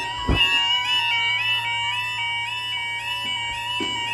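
Level crossing warning alarms sounding while the barriers are down: electronic alarms warbling between alternating notes over a steady high note. There are a few low thumps.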